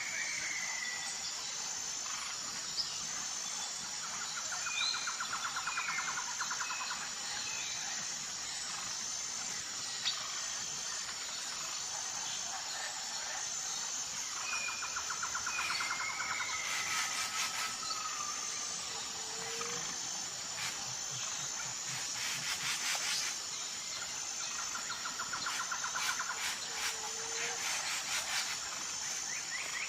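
Insects and birds calling together: a steady high insect trill runs throughout, with short bird chirps scattered over it. Three bursts of rapid pulsed calls come about ten seconds apart, and two clusters of quick sharp clicks fall near the middle.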